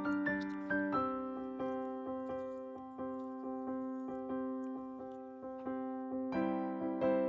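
Background music: a gentle keyboard melody with a note struck about every half second over held chords.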